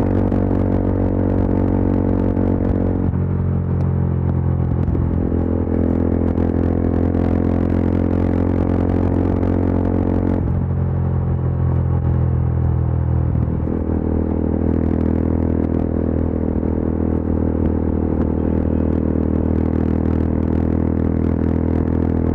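Yezdi Adventure's single-cylinder engine running steadily under way at highway speed. Its note changes about three seconds in, again around ten seconds and near fourteen seconds.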